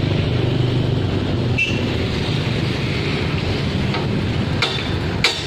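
Road traffic passing close by: a vehicle engine rumbles past in the first second or so, then a steady traffic noise. Two sharp knocks come near the end.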